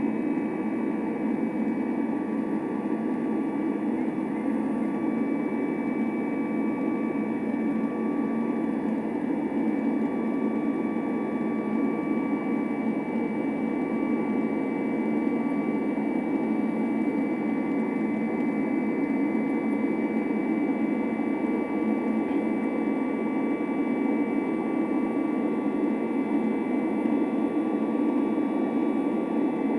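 Boeing 737 airliner jet engines running at steady thrust: an even rush with a few steady whining tones over it, unchanging in level.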